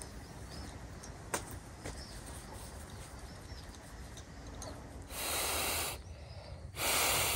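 Faint high chirping in the background and a single sharp click, then two bursts of steady hiss about a second each, the first about five seconds in and the second near the end.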